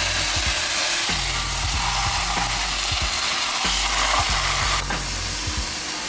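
Marinated chicken breasts sizzling as they fry, a steady dense hiss, with background music underneath.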